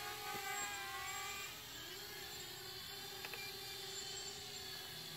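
MJX Bugs 3 quadcopter's brushless motors and Dalprop 6045 tri-blade propellers whining in flight, several tones at once, the pitch dipping and rising again about a second in as the motor speeds change.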